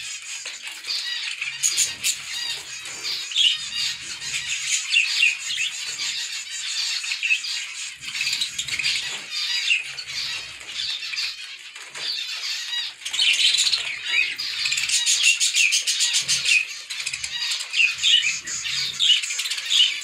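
A colony of zebra finches calling all at once: many short calls overlapping without a break, with wings fluttering now and then.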